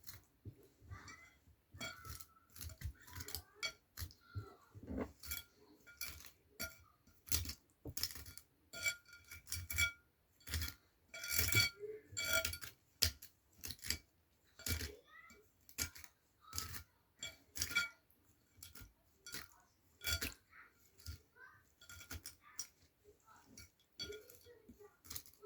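A comb working through a doll's tangled synthetic hair over a bowl of water: a run of irregular light clicks and taps, a few every second, with faint clinks.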